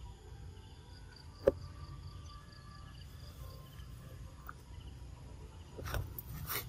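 Faint insects chirring steadily in the background, with a single sharp click about a second and a half in and two brief rustling bursts near the end.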